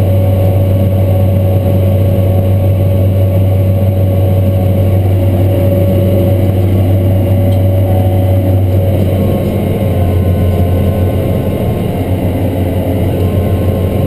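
Diesel engine of a Cat MT765C track tractor droning steadily under load, heard inside its cab, with a strong low hum and a steady higher tone over it.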